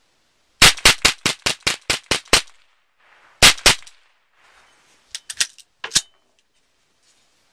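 A .22 rimfire AR-style rifle with a titanium muzzle brake fires a rapid string of about nine shots, roughly five a second, then two more after a short pause. A few lighter metallic clicks and one sharper clack follow as the rifle's action is worked by hand, typical of clearing a stoppage in a .22.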